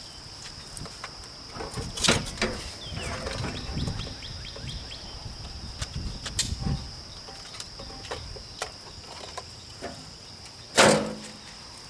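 An engine's electric starter cranking the engine over for several seconds on power from a portable jump starter. It starts with a sharp click and the engine does not catch. Crickets chirp steadily, and there is a loud thump near the end.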